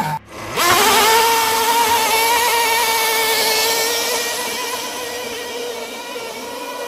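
RC pulling tractor's motor whining at a high, steady pitch as it drags the weight sled down the dirt track. The whine rises in pitch about half a second in, then holds and slowly fades.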